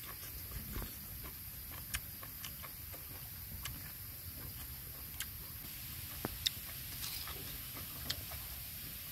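Octopus grilling on a hot rock over a fire, crackling with irregular sharp ticks and pops over a faint steady hiss.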